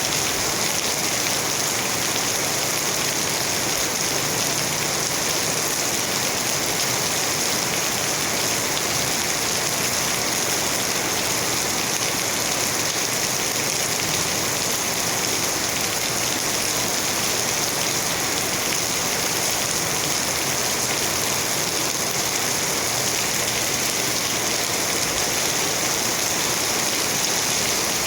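Steady heavy rain falling on surfaces, an even hiss that keeps up without a break.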